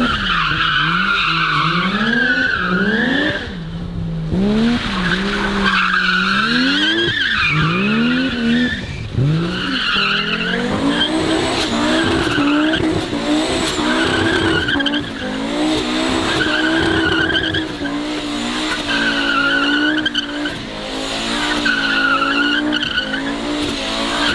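Drift cars on wet asphalt: an engine revving up and down again and again while the tyres squeal. From about ten seconds in, an engine is held at steady high revs over continuous tyre squeal, as in a smoky burnout.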